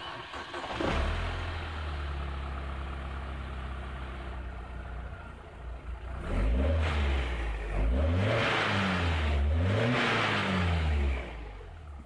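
A 2007 BMW X3's engine is cranked and starts, then idles steadily for a few seconds. It is revved several times with rising and falling blips, and is switched off near the end.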